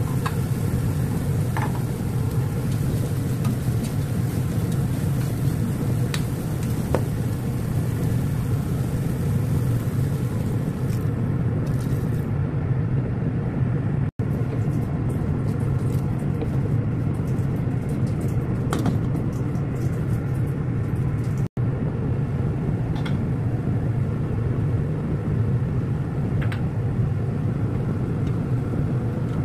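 Steady low rumble of kitchen background noise, with a few faint clinks of a spoon against a metal pot. The sound cuts out for an instant twice.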